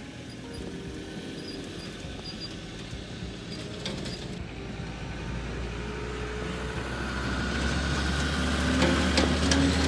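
A vehicle engine running steadily. Its low hum builds and grows louder over the second half, with a few sharp clicks near the end.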